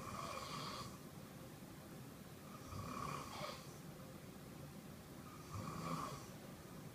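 A man snoring in his sleep: three snores, each under a second long, about two and a half to three seconds apart.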